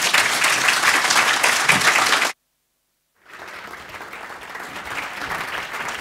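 Audience applauding: loud applause that breaks off abruptly a little over two seconds in, about a second of silence, then fainter applause resumes.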